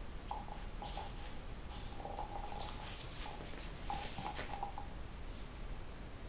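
Puppy whining in a string of short, thin, high whimpers that stop about five seconds in. Light clicks of its teeth and claws on a hard rubber treat ball and the tile floor are mixed in.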